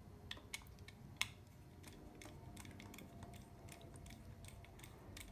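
Faint scattered clicks and light ticks of a small screwdriver and stripped wire ends working at a screw terminal on a Kitronik motor driver board; the loudest click comes about a second in.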